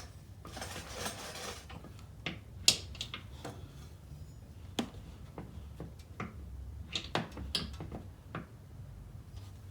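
Scattered light clicks and knocks, with a brief scrape about a second in: hockey-puck jacking pads and QuickJack lift parts being handled and positioned under the car.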